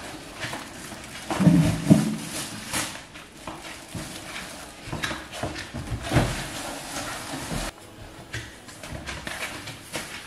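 Plastic shopping bags and cellophane wrapping rustling and crinkling as groceries and cake boards are handled, with several knocks, the loudest about two seconds in.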